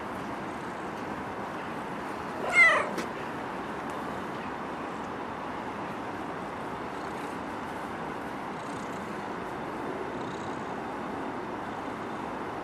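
A cat gives one short meow that falls in pitch, about two and a half seconds in, over a steady background hiss of street noise.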